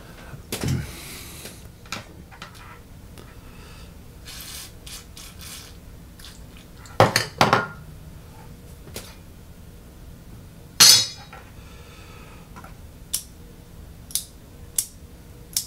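Scattered metallic clinks and knocks from small metal parts being handled: a few together about seven seconds in, one louder ringing clink about eleven seconds in, and light ticks near the end.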